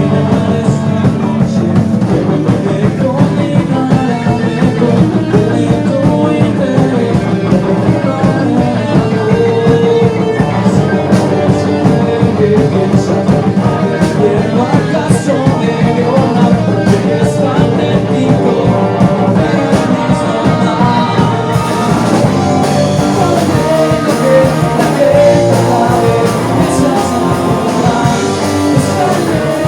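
Rock band music with electric guitar and drums, playing continuously at a steady loud level.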